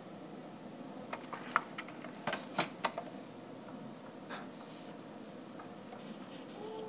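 Light clicks and taps from hands handling a plastic toy car and its loose wiring: a cluster of sharp clicks about one to three seconds in and another a little past four seconds, over faint hiss.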